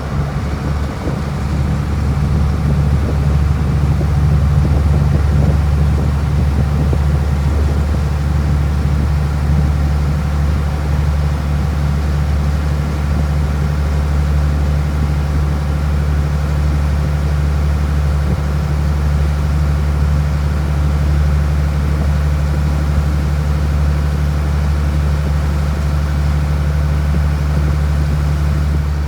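A water bus's engine running steadily while the boat is under way: a loud, even, low drone with a faint steady whine above it.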